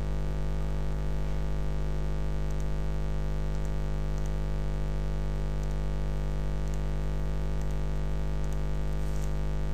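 Steady electrical mains hum with a stack of even overtones, unchanging throughout, with a few faint clicks over it.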